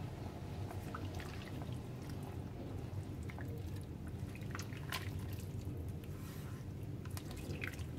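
Water with chicken stock in a pan of fried chicken and vegetables heating on the stove, with faint liquid bubbling and scattered small pops and clicks over a low steady hum.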